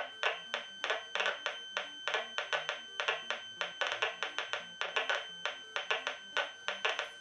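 Telephone amplifier's speaker playing the interference its inductive pickup catches from a switched-off smartphone: a fast, uneven run of clicks over a faint steady high tone, sounding just like a metal detector.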